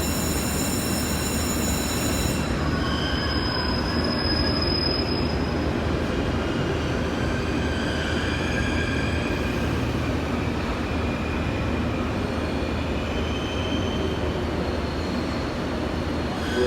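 JR Kyushu 787 series electric train pulling away: a steady rumble of wheels and running gear, with faint wavering high tones over it. A set of high steady tones stops about two seconds in.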